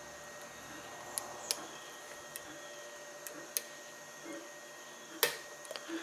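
Scattered sharp clicks of a hook pick working the pins of a Corbin Russwin challenge lock, the loudest about five seconds in, over the steady hum of a 3D printer running.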